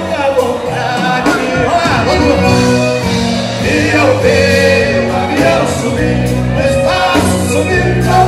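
Live sertanejo band music played through PA speakers: a piano accordion and bass under men's voices singing.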